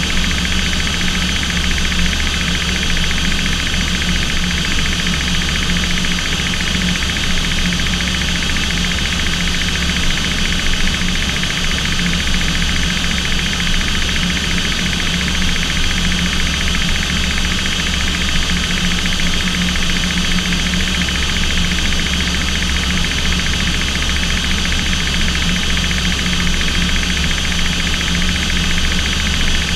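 Engines of an aircraft in flight, heard from inside the cockpit: a loud, unchanging low drone with a steady high whine over it.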